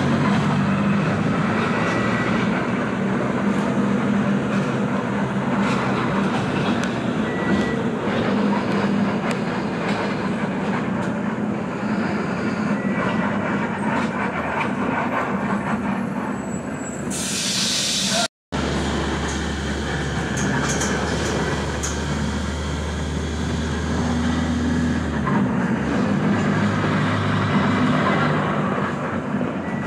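Loud, steady street noise with a traffic rumble. It is broken by a brief silent gap a little past halfway, after which a deep low drone runs for several seconds.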